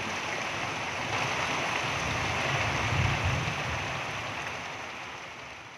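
Heavy rain pouring down steadily, with a low rumble of wind on the microphone swelling about three seconds in; the sound fades out near the end.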